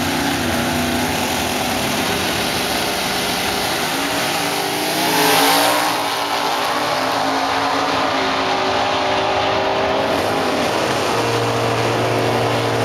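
Drag race cars launching off the starting line: engines running, a loud burst as they leave about five seconds in, then engine notes rising through the gears as the cars pull away down the strip. A steady engine drone comes in near the end.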